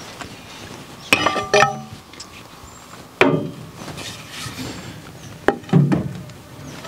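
A steel mattock head and a wooden handle being set down and handled on a steel workbench: several clanks and knocks, the first couple ringing briefly like struck metal.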